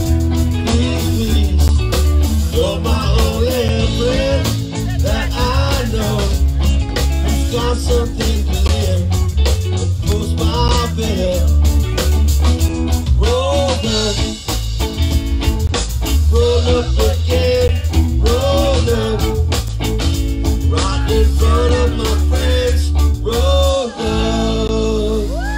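Live band playing: electric guitars over a steady bass line and drum kit, with a short stop near the end.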